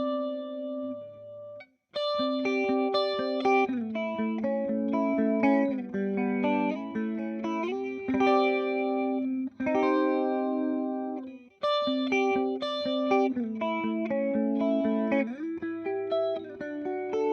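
Electric guitar, a Fender Jazzmaster with humbuckers, played through a Boss CE-2 analog chorus pedal into a simulated Fender '65 Twin Reverb amp. It plays a phrase of chords and picked notes, with brief stops near two seconds in and twice more about ten and twelve seconds in.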